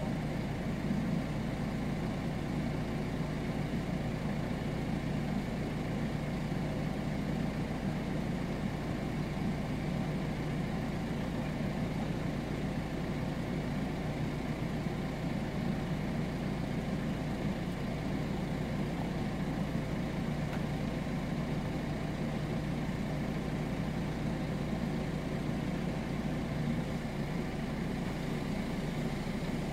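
JCB telehandler's diesel engine idling with a steady, even low drone.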